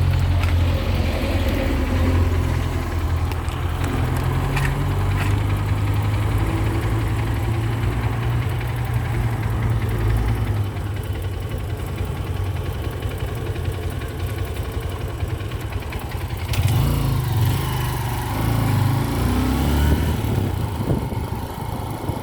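Motor vehicle engine running with a steady low rumble. The sound shifts and grows a little louder about three-quarters of the way through.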